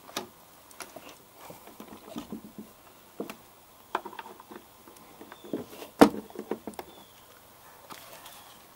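Hinged wooden-framed switch panel being handled and swung shut: scattered clicks and knocks of wood and hinges, with the loudest knock about six seconds in.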